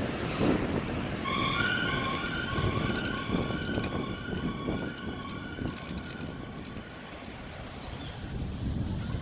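An emergency vehicle's two-tone siren, alternating evenly between a high and a low note, fading out as it moves away by about six seconds in, over steady city street traffic noise.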